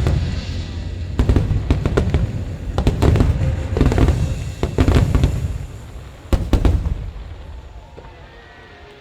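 Aerial fireworks going off in quick succession, with deep booms and sharp crackling bursts overlapping. They thin out, with a last pair of bursts about six and a half seconds in, then die away.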